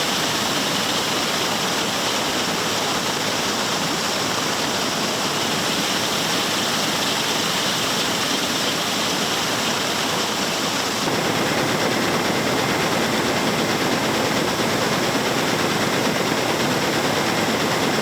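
Wheat pouring out of a grain trailer into an auger pit while the grain augers run, a steady loud rushing noise. It gets louder about eleven seconds in.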